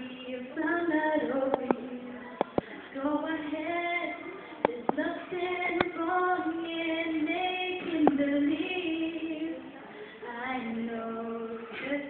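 A young woman singing into a microphone: several phrases with long held notes that slide between pitches. A few sharp clicks cut in over the singing.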